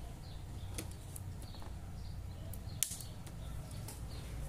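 Faint clicks and handling noise as a flat ribbon cable is pressed into its connector on an LCD TV's main board, with one sharper click just before three seconds in, over a steady low hum.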